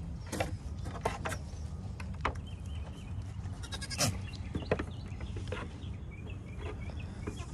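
Goats bleating, with scattered sharp knocks and clicks.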